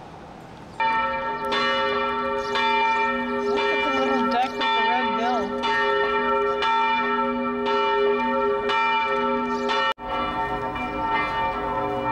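Church bells ringing in a peal, starting about a second in: strikes roughly once a second over long, overlapping ringing tones. The sound cuts out briefly near the end.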